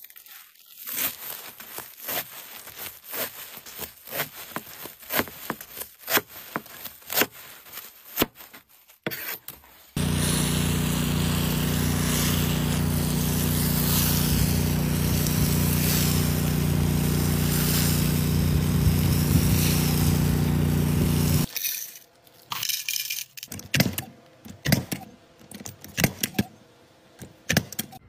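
A knife slicing through a bundle of rolled woven mats in a quick series of crackling cuts. About ten seconds in, a hydroseeding hose spraying mulch slurry takes over with a loud, steady hiss over a low hum, cutting off abruptly about twenty-one seconds in, followed by a few sharp clicks and scrapes.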